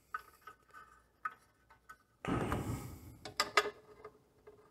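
Small metallic clicks and taps as a nut is threaded by hand onto the alternator shaft inside the hub of a VW Beetle alternator's cooling fan. There is a short rustling scrape about two seconds in and a few sharper clicks just after it.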